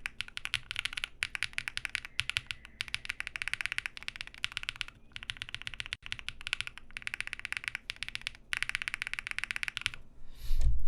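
Typing on a mechanical keyboard with lubed, filmed Durock POM linear switches on a polycarbonate plate and CRP Tulip keycaps: fast runs of keystrokes with a short pause about five seconds in.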